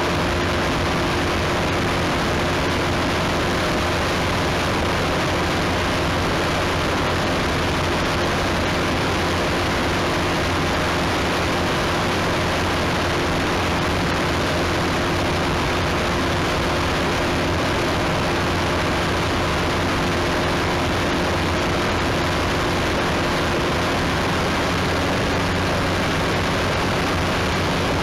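Small aircraft's engine running at a steady setting under a loud, even rush of wind, heard on board in flight.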